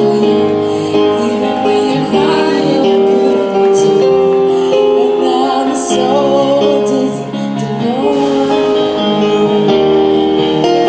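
A woman singing into a microphone over an amplified instrumental backing track, its held chords changing every couple of seconds beneath her wavering melody.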